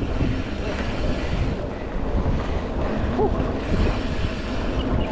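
Wind buffeting the microphone of a camera on a moving mountain bike, a steady low rumbling noise. A short wavering squeak cuts through about three seconds in.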